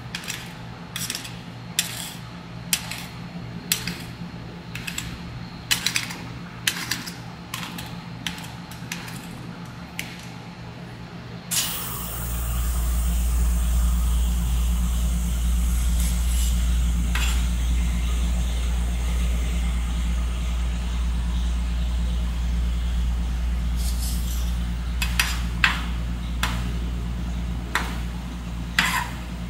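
Metal spatulas chopping and scraping on the steel cold plate of a rolled-ice-cream maker, sharp clicks about once a second. About twelve seconds in a steady low rumble with a hiss starts and runs on, and the spatula clicks come back near the end.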